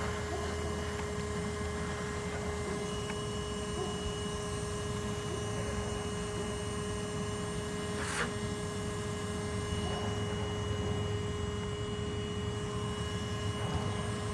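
Bee vacuum running steadily, a constant motor whine over a low rush of air, with one short click about eight seconds in.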